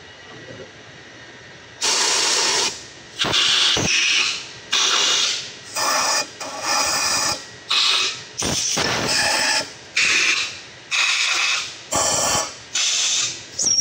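Compressed-air blow gun blowing out the passages of a diesel cylinder head in short loud blasts, about one a second, starting about two seconds in, to clear metal debris from the drillings.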